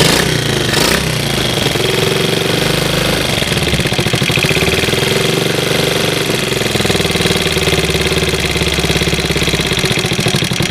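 Small single-cylinder ATV engine running just after starting, its revs rising and falling a little. It is fired by a portable 12-volt CDI ignition powered from a jump pack, and it runs easily.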